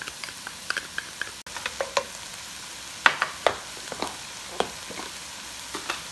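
Browned ground beef sizzling in a nonstick pot after its juices have cooked off, with small pops throughout. A wooden spatula stirs it, scraping and knocking against the pan several times from about three seconds in.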